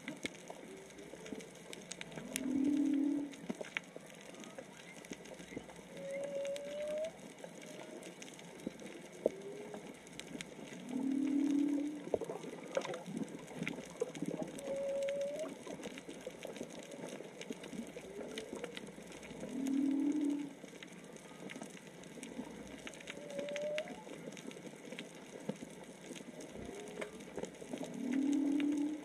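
Humpback whale song heard underwater: a low moan comes four times, about every eight and a half seconds, alternating with a shorter, higher upswept call, over a crackle of scattered clicks.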